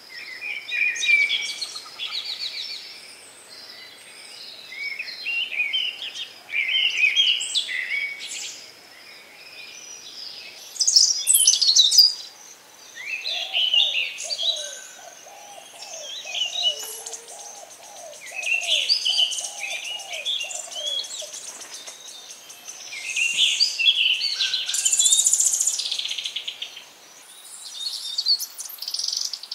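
Songbirds singing in short chirping phrases, one every second or two, with a lower run of quick repeated notes through the middle.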